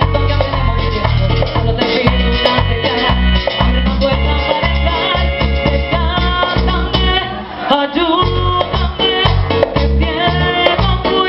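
Tropical Latin dance-band music with a pulsing bass and percussion, and a singer's voice over it; the music drops back briefly about seven and a half seconds in.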